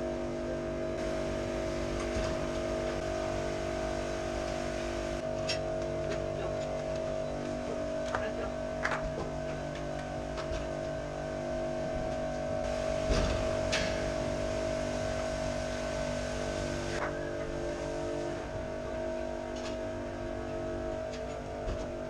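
Steady machine hum in a cow barn, several held tones that never change pitch, with a few scattered clicks and knocks, the loudest about 13 seconds in.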